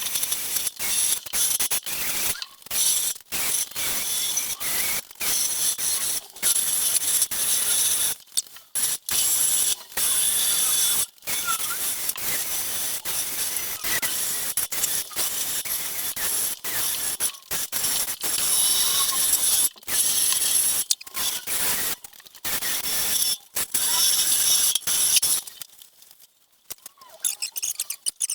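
A handheld power tool running in stretches with many brief stops, a harsh high-pitched mechanical noise. It stops about 25 seconds in.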